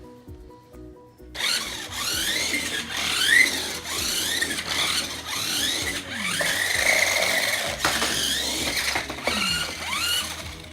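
Toy RC car's small electric motor and gears whining as it is driven, the pitch repeatedly rising and falling as it speeds up and slows. Background music plays underneath.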